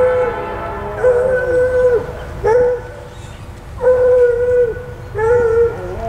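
Freight locomotive's air horn blowing for the grade crossing. It sounds a series of chord blasts, mostly about a second long with one short one, and each note sags in pitch as it cuts off.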